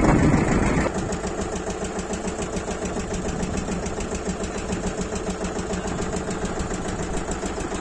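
Engine of a mini borewell drilling machine running steadily with a fast, even beat. It is louder for about the first second, then drops abruptly to a steady, lower level.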